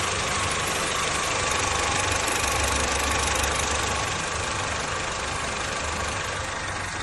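Honda Civic FD engine running with a loud, steady metallic rattle from the top end, like coins shaken in a piggy bank: the sign of excessive valve clearance.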